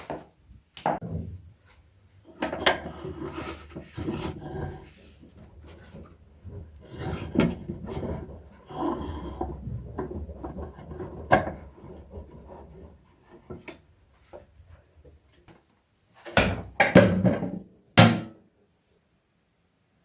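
Irregular rubbing and scraping sounds that come in patches, with a sharp knock about eleven seconds in. The loudest scraping comes near the end and then stops suddenly.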